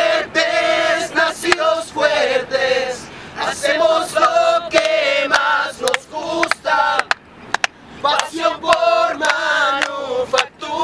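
A group of men and women singing together in harmony, with sharp clicks cutting in now and then.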